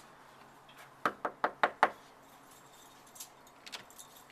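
A quick run of five sharp knocks, about five a second, followed by a couple of faint clicks near the end.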